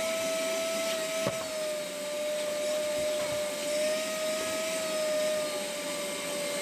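A small electric motor running steadily: a constant whine over an even hiss, with a single sharp click about a second in.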